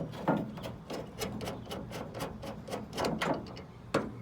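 Clips and rods of a 2008 Toyota Tundra's tailgate latch being popped loose and pulled out by hand: a run of irregular sharp clicks and knocks, the loudest just after the start, near three seconds and near four seconds.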